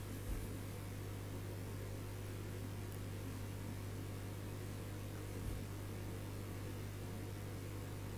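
Steady low mains hum with a faint hiss, broken by two soft low thumps, one just after the start and one about five and a half seconds in.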